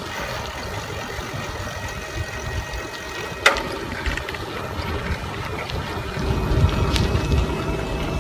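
Wind buffeting the microphone while riding a bicycle, with tyre and road rumble, swelling stronger for a couple of seconds near the end. A single sharp click comes about three and a half seconds in.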